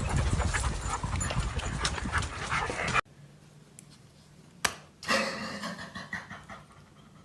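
A loud, steady rustling noise with scattered clicks, then after a sudden cut a single sharp click and a dog panting, fading away.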